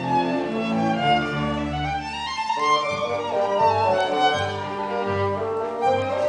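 Violin playing a melody in long bowed notes over a lower accompaniment of sustained bass notes.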